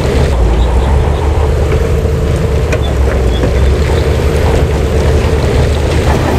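Heavy earthmoving machine's diesel engine running loud and steady under load, with a low rumble and scattered clanks and rattles.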